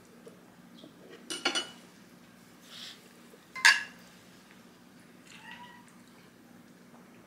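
Domestic cat meowing several times, the loudest calls about one and a half and nearly four seconds in, with a fainter one later.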